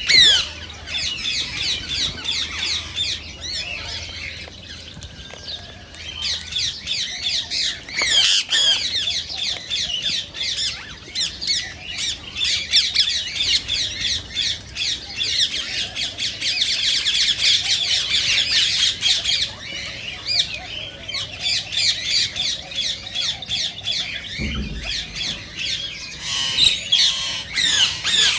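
Indian ringneck parakeet squawking and chattering in a rapid, nearly unbroken run of shrill calls, some sliding down in pitch.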